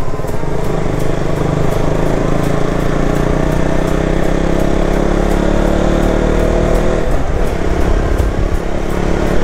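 Motorcycle engine running under way with a steady rush of wind, its note climbing slowly. A short break about seven seconds in, after which the note carries on, marks a gear change.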